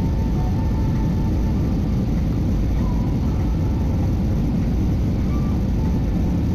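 Steady jet airliner cabin noise: a constant low rumble of the engines and rushing air, heard from inside the cabin during the approach to landing.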